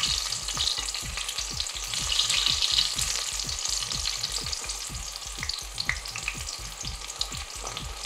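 Eggplant slices shallow-frying in oil in a stainless steel skillet: a steady sizzle full of small crackling pops, with a few light clicks of tongs as the slices are turned. A low regular pulsing, about four beats a second, runs underneath.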